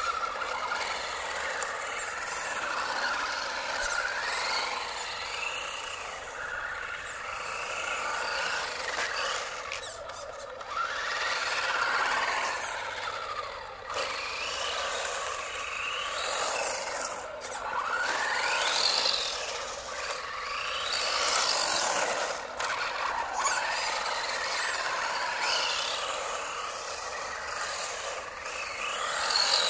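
3D-printed 1/10-scale Mk Ultra RC race buggy driving: its electric motor and 3D-printed spur and pinion gears whine, rising and falling in pitch again and again as it speeds up and slows down, over the noise of its tyres on the road.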